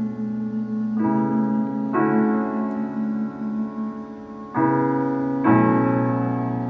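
Piano music: slow chords struck one after another, each ringing on until the next, about four new chords in the stretch.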